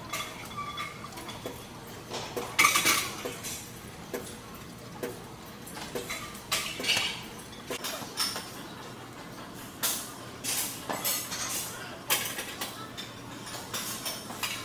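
Gym weights clanking: irregular sharp metallic clinks and knocks of iron plates and bars, the loudest about two and a half seconds in.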